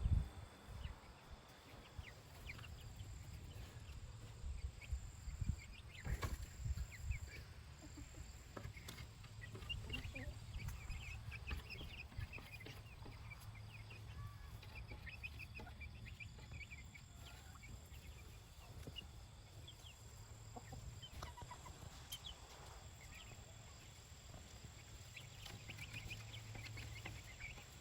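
Chickens clucking and chirping softly, scattered short calls over a low steady rumble, with a few knocks about six seconds in.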